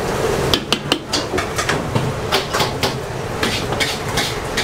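Metal wok ladle clanking and scraping against a steel wok in irregular quick strikes, several a second, as noodles and bean sprouts are tossed in a stir-fry.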